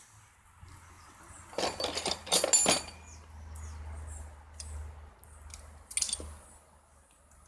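Small metal objects such as hand tools clinking and rattling as they are handled, with a burst of clatter about two seconds in and a single sharp click about six seconds in.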